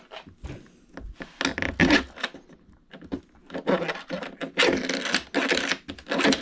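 Hands scraping, rubbing and lightly knocking model airplane parts and screws while trying to fit them together. The noises come in irregular bunches, heaviest about a second and a half in and again from about four and a half seconds.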